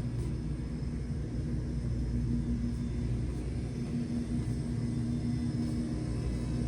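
Steady low droning hum with a rumble underneath; its pitched tones break off briefly a few times.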